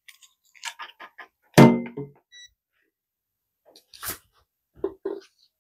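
ESR meter test leads and clips handled at a workbench: small plastic and metal clicks and knocks, with a sharper click about four seconds in. A short electronic beep sounds about two and a half seconds in, and a brief, louder non-speech vocal sound comes just before it.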